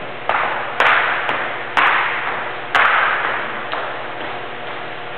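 Footsteps on a hardwood floor: four sharp knocks about a second apart, each followed by a hiss that fades away.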